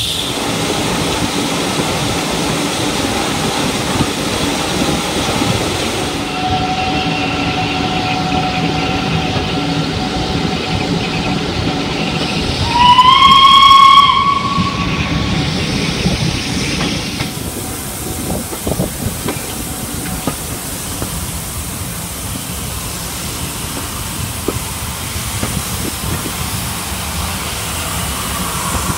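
Heritage steam train's carriage running along the track, wheels clicking over the rail joints. About 13 seconds in, a steam locomotive's whistle sounds one blast of a little over a second, rising in pitch as it opens, the loudest sound. The running noise drops a little in level for the rest of the stretch.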